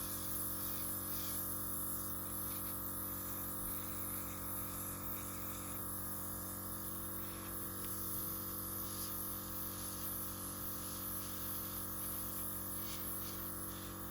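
Small air compressor running with a steady hum and a faint hiss of air, used to blow wet acrylic pour paint outward into a bloom.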